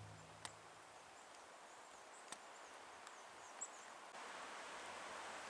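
Quiet outdoor ambience of a snowy forest: a faint hiss with a few short high chirps and three sharp ticks. About four seconds in, a louder steady hiss comes in.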